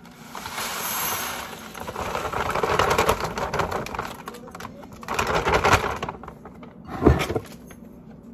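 A clear plastic bag crinkling and rustling in two long stretches as it is handled, then a single thump about seven seconds in.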